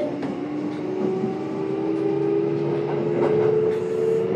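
Kintetsu 1031 series train's Hitachi GTO-VVVF inverter and traction motors whining in several tones as the train gathers speed. The tones shift just after the start, then climb slowly. Light clicks come from the rails.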